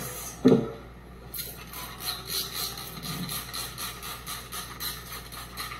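Trigger spray bottle of diluted household cleaner being pumped again and again, each pull a short hiss of spray, about three a second, onto a wooden countertop. A short knock comes about half a second in.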